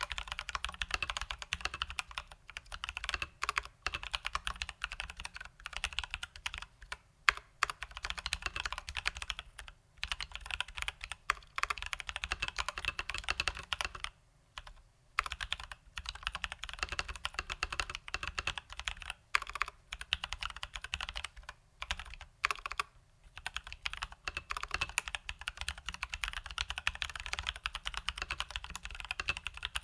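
Continuous fast typing on a Leopold FC980M mechanical keyboard with Durock T1 tactile switches lubed with Krytox 205g0 and stock keycaps, a dense run of keystrokes broken by short pauses now and then.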